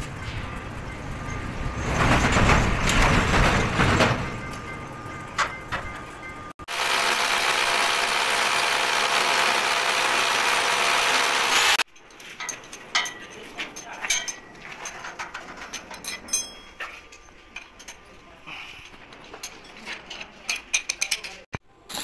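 Steel gate fabrication with a stick (arc) welder, in several edited segments. First comes a burst of loud crackling, then a long steady welding hiss that starts and stops abruptly, then scattered light taps and clinks of metal being fitted.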